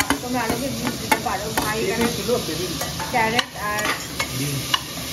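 A steel spoon scrapes and clinks against the inside of a pressure cooker as chopped vegetables are stirred into onions and tomato frying in mustard oil. There are repeated sharp metal clicks and short squeaky scrapes over a steady sizzle.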